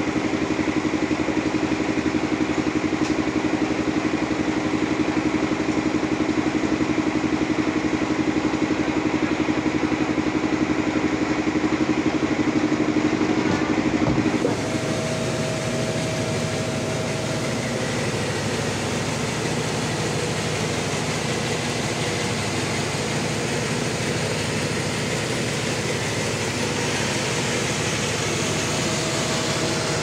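Band sawmill machinery running steadily, with an engine-like drone. About halfway through, the sound changes abruptly to a lighter, steady machine hum with a faint whine.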